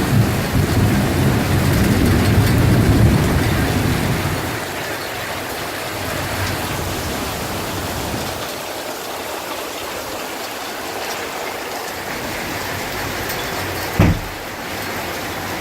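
Thunder rumbling and dying away over the first four seconds or so, over steady heavy rain. A single short, sharp thump comes near the end.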